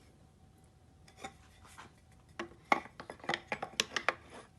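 Shadowbox moulding being set into a MasterClamp V5-Pro framing clamp. A string of light knocks and clicks comes over about two seconds, starting a little over two seconds in, as the pieces seat against the clamp.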